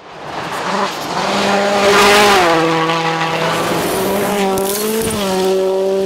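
Rally car at speed on a gravel stage, its engine note dropping in pitch twice, about two and a half and five seconds in, over a hiss of tyres and gravel. It grows loud quickly and is loudest about two seconds in.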